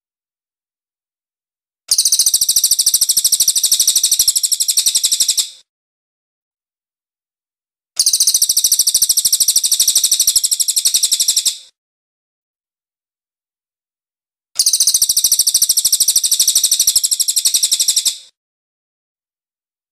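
Cililin (crested jay) calling in three bursts of fast, evenly repeated, high ringing notes, each about four seconds long. The bursts are separated by clean silent gaps of two to three seconds, as in a bird-song training track edited with pauses.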